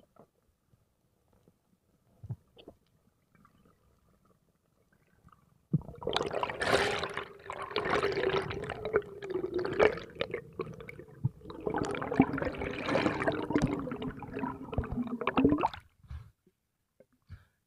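Underwater bubbling and gurgling in two long stretches, each with a wavering low tone running through it.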